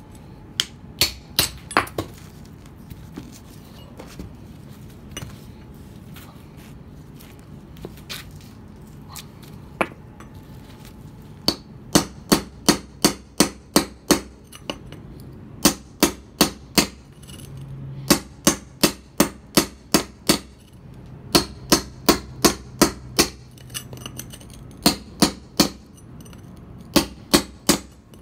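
A hammer striking a mason's chisel held against a stone block to cut it to size: sharp metallic taps, a few scattered at first, then quick runs of several strikes in a row with short pauses between.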